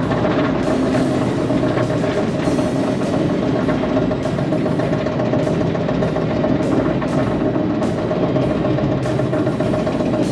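Chance Rides Hyper GTX roller coaster climbing its chain lift hill: the lift chain running with a steady whine under a rapid, continuous clicking from the train's anti-rollback dogs on the track.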